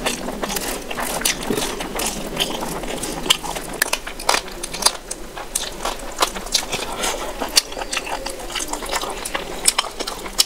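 Close-miked wet chewing and lip-smacking of a mouthful of rice and oily chicken curry, eaten by hand, with frequent sharp wet clicks and squelches.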